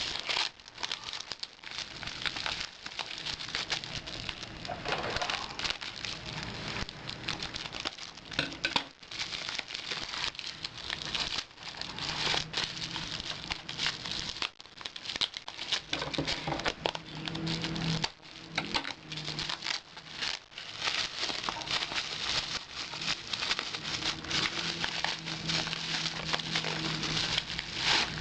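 Bubble wrap being unwrapped from a package by hand: continuous crinkling and crackling of plastic, with many small sharp clicks.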